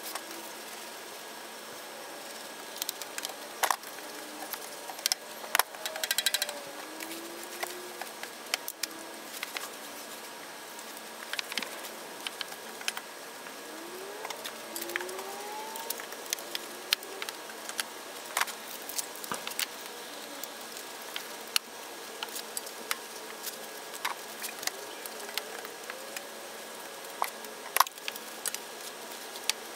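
Scattered clicks and knocks of a scrub brush against a bicycle's frame and wheels, with the splash of the brush in a bucket of soapy water, over a steady hiss and a few faint short rising whistles.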